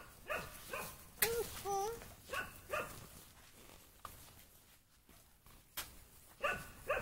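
Small dogs barking in quick, high-pitched barks: a run of three at the start, two more about two and a half seconds in, and two near the end, with a quieter spell between. About a second in, a sharp click is followed by a longer wavering cry.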